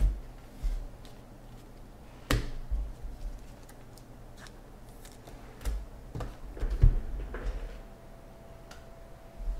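Cardboard trading-card boxes being handled and set down on a table: a scattered run of knocks and thumps, the loudest about two-thirds of the way through.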